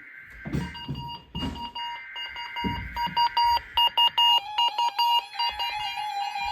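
Emergency Alert System required weekly test tones on NOAA Weather Radio: the warbling digital SAME data burst with an electronic alarm tone over it, which beeps rapidly in the middle and drops to a lower steady tone about four seconds in.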